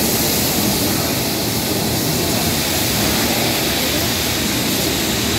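Double-headed steam train of locomotives 3801 and 3526 departing, a steady rumble and hiss with no clear beat as the locomotives and carriages move off.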